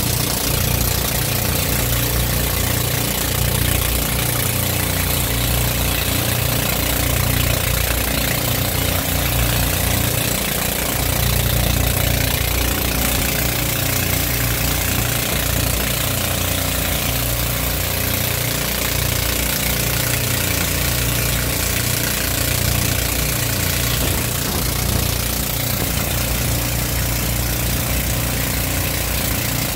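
Engine of an outrigger pump boat running steadily under way, with a constant hiss and splash of water from the spray thrown up along the outrigger floats.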